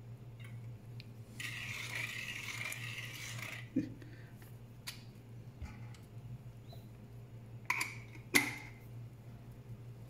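Metal parts of manual coffee grinders being handled: a scraping rub for about two seconds, then a few light clicks and two sharp metallic clinks near the end.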